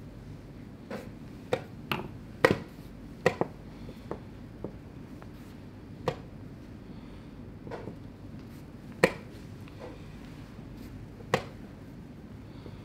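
Blitz chess moves: wooden chess pieces set down on the board and the chess clock's button pressed. About ten sharp knocks and taps come at irregular intervals, loudest about two and a half seconds in and again about nine seconds in.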